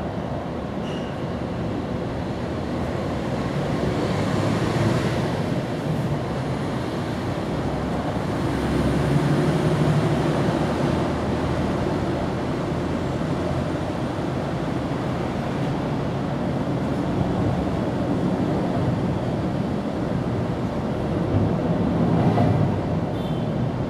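Steady low outdoor rumble that swells and eases a few times, with no distinct events standing out.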